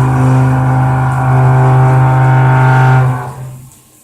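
A CNC milling machine's motor runs with a loud, steady hum of constant pitch, then fades away after about three seconds.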